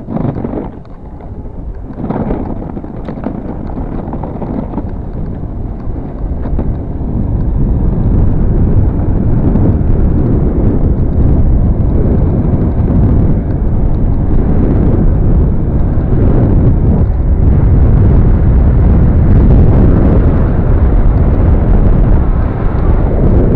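Heavy wind rumble buffeting a handheld camera's microphone while riding an electric skateboard along a paved path. Two thumps come in the first two seconds, then the rumble grows louder for several seconds and holds steady.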